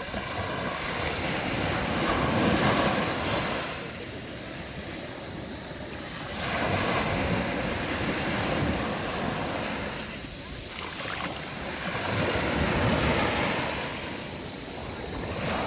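Sea waves breaking and washing up the shore, the surf swelling and ebbing about every four to five seconds over a steady high hiss.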